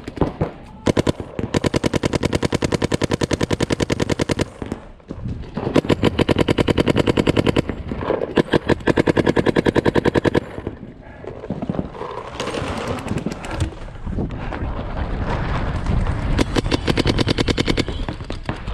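Paintball markers firing rapid strings of evenly spaced shots, in several bursts of a few seconds each, with rougher, less regular sound in between.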